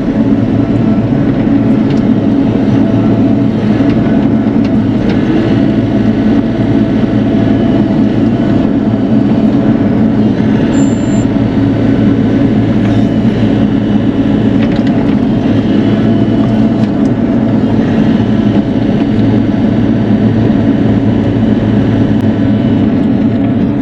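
Bobcat E42 mini excavator's diesel engine running steadily and loudly under work, with scattered faint knocks over the top.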